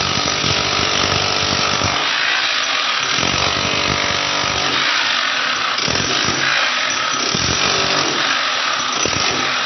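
Electric hammer with a chisel bit chipping steadily into a concrete wall, running without a break.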